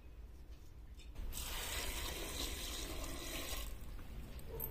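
Water poured from a metal bowl into an aluminium pressure cooker over chopped greens and lentils, a steady splashing pour that starts about a second in and eases off after about two and a half seconds.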